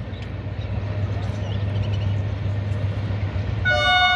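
HGMU-30R diesel-electric locomotive approaching with a steady low engine rumble, then sounding its horn, a loud sustained multi-tone blast, near the end.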